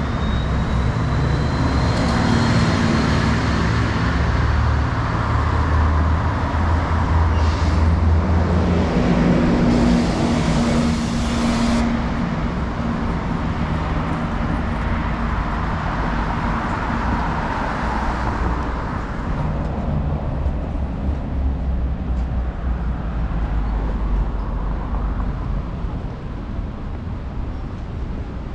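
City street traffic: cars and buses passing with engines running, a steady rumble of road noise. A faint rising whine comes early, and a brief hiss starts about ten seconds in.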